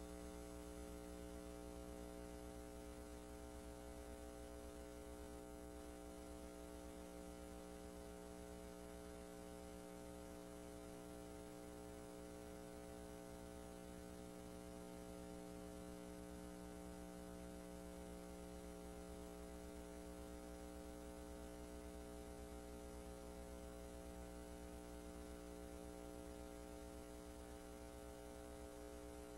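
Steady electrical mains hum with a stack of even overtones and a faint hiss; no other sound.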